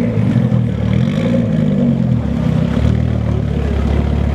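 A rally car's engine revving, rising and falling in pitch a few times, then holding a steady lower note from about three seconds in.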